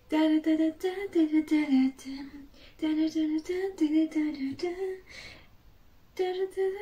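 A girl singing a tune from memory in short, clipped notes, about four a second. She sings two phrases, pauses, then sings a few more notes near the end.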